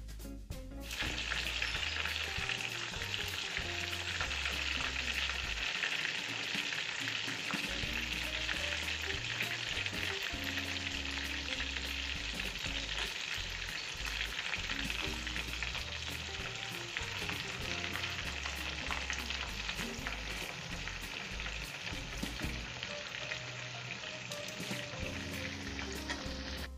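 Battered shrimp tempura deep-frying in hot oil in a stainless steel pot: a dense, steady sizzle and crackle that starts about a second in.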